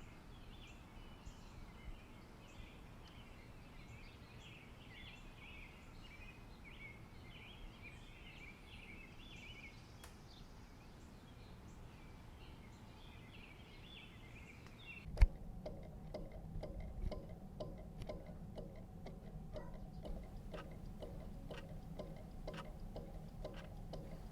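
Faint chirping of small birds over a steady background hiss. About fifteen seconds in, a sharp click, after which the sound becomes a steady low hum with many quick ticks.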